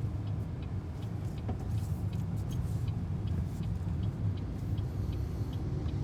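Low, steady road and tyre rumble inside the cabin of a BYD Seagull electric hatchback driving in traffic, with no engine note. A faint, light ticking repeats evenly about three times a second.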